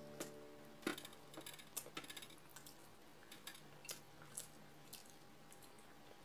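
Faint, scattered clicks and smacks of someone eating rice by hand: chewing and fingers picking food off a ceramic plate, at an uneven pace of a few clicks a second.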